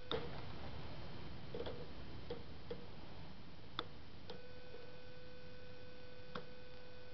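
Wire cutters snipping the ties on a wire-mesh live trap: a scattered series of sharp metal clicks and snips, the loudest right at the start.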